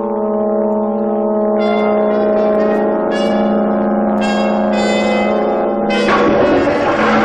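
Brass-led soundtrack music: a low brass chord held steady, with a higher line of short stepping notes entering about a second and a half in. A loud rushing noise swells up about six seconds in.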